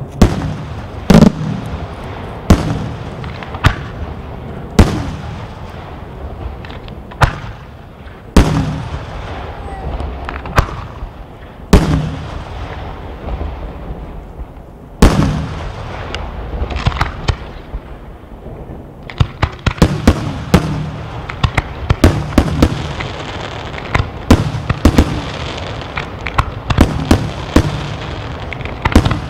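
Aerial firework shells bursting in a display: single loud bangs every second or two, each followed by a rolling echo. From about two-thirds of the way through, the reports come quicker and closer together as a faster volley is fired.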